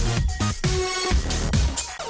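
Loud electronic dance music with a heavy, regular beat, played as show music.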